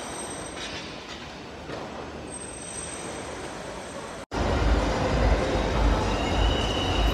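Steady background noise of a busy airport terminal. About four seconds in, it cuts abruptly to a louder outdoor ambience with a deep, steady rumble.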